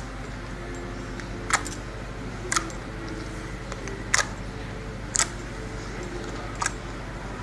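Slime being played with, giving five short, sharp pops a second or so apart over a steady low hum.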